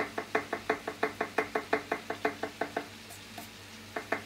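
Chef's knife chopping fast on a wooden cutting board, about six knocks a second. The chopping stops for about a second near the end, then starts again.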